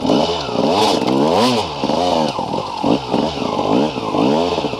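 Dirt bike engine revving up and down over and over while being ridden, its pitch rising and falling with each twist of the throttle.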